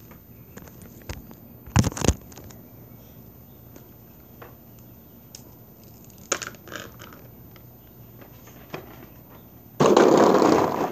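Knocks and rubbing from a phone camera being handled and set down on concrete, two sharp knocks about two seconds in and a few lighter ones later. Near the end comes a loud rush of noise lasting about a second.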